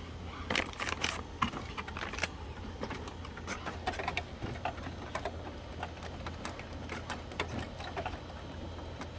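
Irregular clicks and knocks from an HP OfficeJet Pro 8710 inkjet printer, over a low steady hum.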